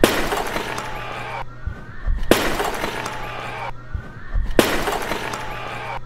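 Large terracotta clay jar smashing on a stage floor and shattering into pieces. It happens three times, about two and a half seconds apart.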